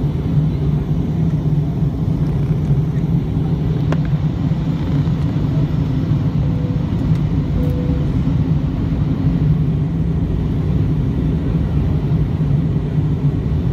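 Steady, loud drone of an aircraft cabin in flight: engine and airflow noise heard from inside the plane, low and even with no changes.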